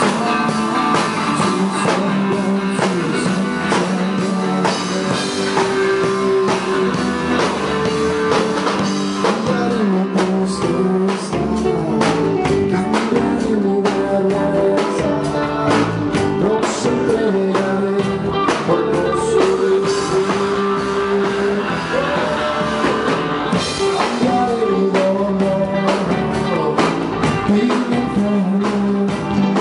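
Live band playing a song through the PA during a sound check, with drums, guitar and singing.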